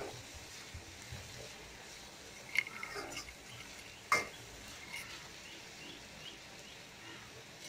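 A metal spoon stirring and scraping chopped onions frying in oil in a kadai, over a faint sizzle, with a few clinks of the spoon against the pan, the sharpest about two and a half and four seconds in.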